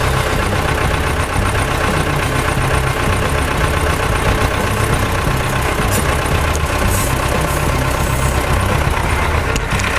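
Diesel engine of a Balkancar DV-1792 micro forklift running steadily while its hydraulic pump raises the mast to full height.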